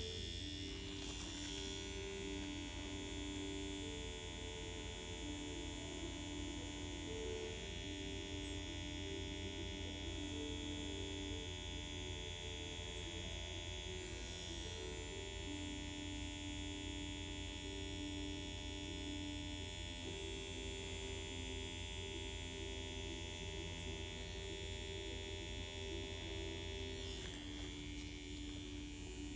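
Permanent-makeup machine (a tattoo pen used for nano brows) buzzing steadily as it works, with soft background music playing a slow melody over it.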